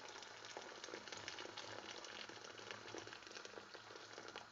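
Boiling water poured from a kettle into a large pot, a steady splashing with many small crackles, cutting off suddenly at the end.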